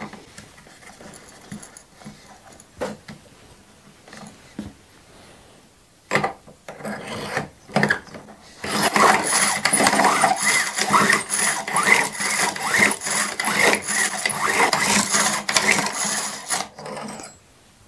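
A brass cartridge case being trimmed to length with a Lee case-trimmer cutter on a hand-cranked Lee Zip Trim. First come a few clicks of fitting the case and cutter, then from about a third of the way in, roughly eight seconds of steady metal-on-brass scraping as the cutter shaves the spinning case mouth. The scraping stops about a second before the end.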